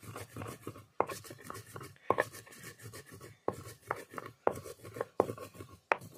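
Spices being ground by hand on a flat stone slab (silauto) with a hand-held grinding stone (lohoro). Stone rubs and rolls over stone, with a sharp knock of stone on stone every half second to a second.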